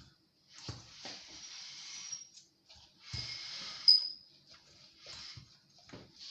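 Pieces of fish going into hot cooking oil in a pot: several short knocks, each followed by a burst of hissing sizzle that dies down after a second or so.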